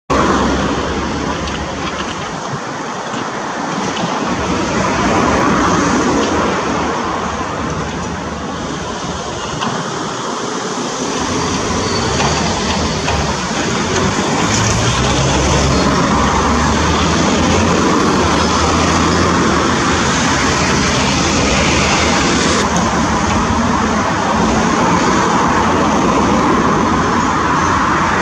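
Doosan DX225LC demolition excavator's diesel engine running under load with its hydraulic shear working, crunching broken concrete and brick rubble, with occasional knocks. The engine hum grows stronger about halfway through.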